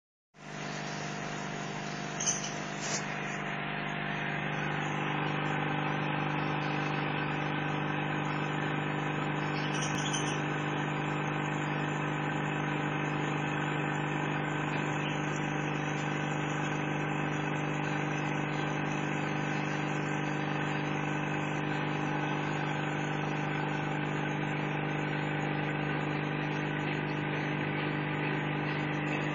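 Steady electric hum of an aquarium pump, one unchanging pitch with many overtones, with two light knocks about two to three seconds in.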